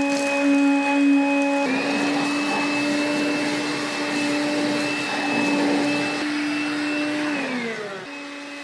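Makita BCL180Z 18V cordless vacuum cleaner running with a steady high motor whine. The whine steps up slightly about two seconds in and a rougher rushing sound joins it. Near the end the motor is switched off and its whine falls in pitch as it winds down.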